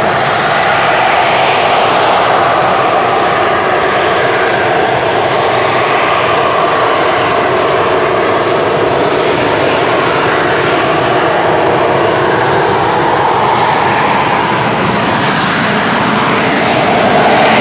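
AV-8B Harrier II's Rolls-Royce Pegasus vectored-thrust turbofan running loudly in slow, jet-borne flight with the gear down: a steady rushing jet noise whose tone wavers slowly, a little louder near the end.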